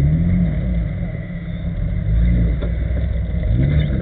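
Jeep Cherokee engine revving in three surges that rise and fall, over a steady low engine rumble, as the offroad Jeep works at a muddy ditch.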